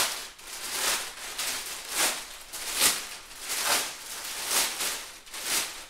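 Clear plastic wrapping rustling and crinkling as it is pulled off a loudspeaker cabinet by hand, in repeated swishes about once a second.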